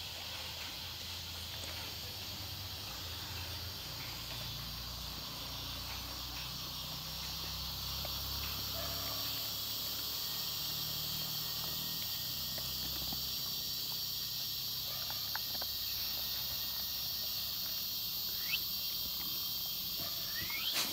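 Steady high chirring of crickets and other insects, with a few faint crunches and clicks from a dog eating dry kibble off a concrete floor.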